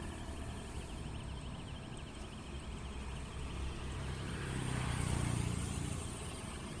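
Steady outdoor traffic-like background, with a low vehicle engine hum that swells and fades again about four to six seconds in as the vehicle passes.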